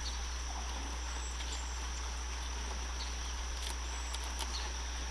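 Steady high-pitched insect drone over a constant low hum, with a few faint ticks.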